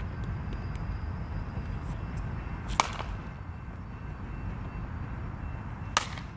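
A bat strikes a pitched ball twice, about three seconds apart. Each hit is one sharp crack with a brief ring.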